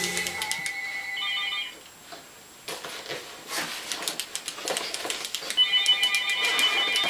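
Mobile phone ringtone playing a short repeating electronic melody, once at the start and again from a little past halfway, with rustling in between as a bag is searched for the phone.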